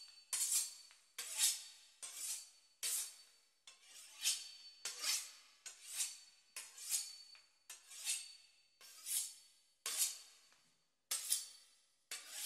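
Knife sawing through the crisp pastry crust of a beef Wellington: a series of short rasping strokes, roughly one a second, each starting sharply and fading.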